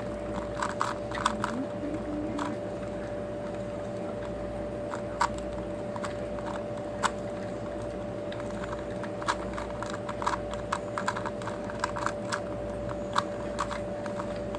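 Two 2x2 puzzle cubes, a Rubik's Mini and a 2x2 speed cube, being turned fast by hand in a solving race: irregular runs of quick plastic clicks and clacks.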